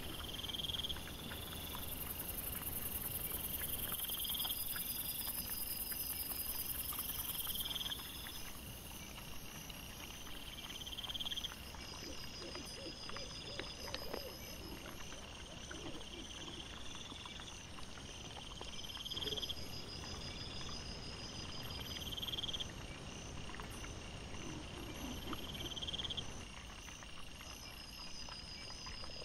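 Night insects, likely crickets, calling in short repeated chirps every two to three seconds over a faint rustling background. A high hiss stops about eight seconds in, and a few brief low pitched calls come near the middle and again later.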